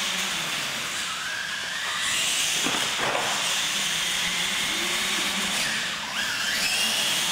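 Radio-controlled monster trucks running on a concrete floor: a steady hiss of electric motors, gears and tyres, with whines that rise in pitch as the trucks speed up, about two seconds in and again about six seconds in.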